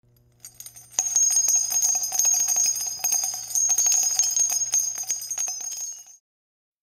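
Bright jingling bells: a quick, dense run of ringing strikes starts about a second in and cuts off suddenly after about six seconds.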